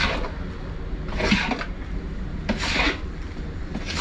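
Long-handled spatula sweeping and scraping around a large wok of thin liquid mixture, with a swish about every second and a quarter, over a steady low hum.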